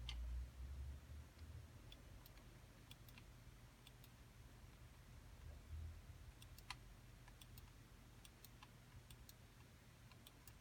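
Near silence, broken by faint, scattered small clicks and taps from the desoldering pump's board and housing being handled, with a low dull bump near the start and another about six seconds in.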